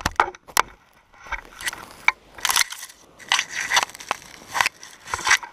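Irregular bursts of rustling and crackling, about eight short ones, as paragliding gear brushes and scrapes against dry grass after landing.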